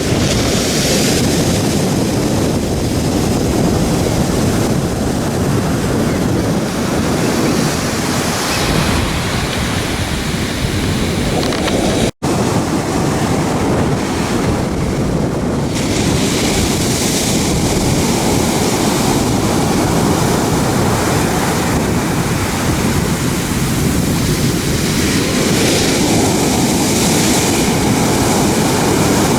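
Ocean surf washing onto a beach, mixed with strong wind blowing over the microphone, a loud steady rush that cuts out for an instant about twelve seconds in.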